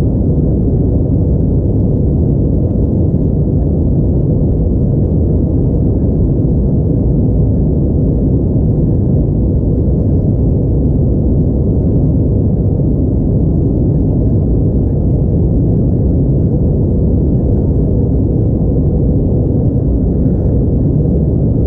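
Steady cabin noise inside an Airbus A321neo in flight, heard at a window seat over the wing: an even, low rumble of engine and airflow that does not change.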